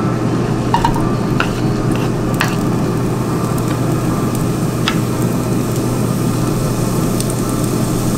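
Diced bell peppers and green onions sizzling steadily in hot oil in a nonstick frying pan, with a few sharp clicks as the knife scrapes more pieces off a wooden cutting board.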